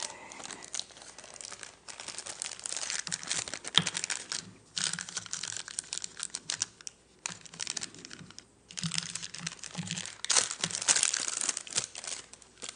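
Crinkling, crackling and clicking of small objects or packaging handled close to a microphone, in a dense irregular run with short pauses.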